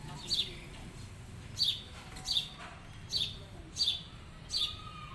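A bird chirping over and over: one short, sharp high chirp roughly every three-quarters of a second, six times.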